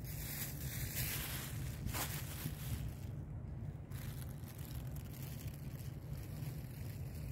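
A cat crunching dry kibble, under a steady low rumble of wind on the microphone.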